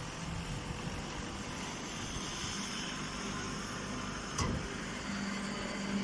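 Hydraulic baler and its feed conveyor running: a steady machine noise with one short knock a little past four seconds in, and a steady low hum setting in about five seconds in.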